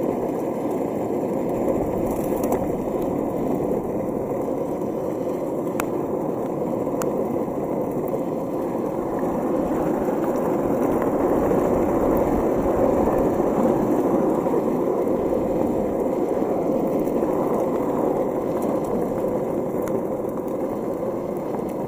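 Land Yacht cruiser board's urethane wheels rolling fast over asphalt: a steady rolling noise that swells a little midway, with a few sharp clicks.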